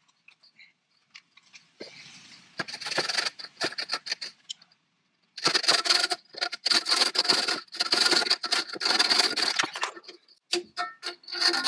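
Flexible corrugated metal diesel-heater exhaust pipe rattling, clinking and scraping against the van's chassis as it is worked into place underneath. There is a short spell of clinking, a brief pause, then a longer run of rapid metallic rattling.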